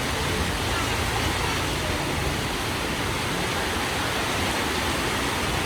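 Heavy rain falling in a steady hiss, with strong wind rumbling at the bottom of the sound.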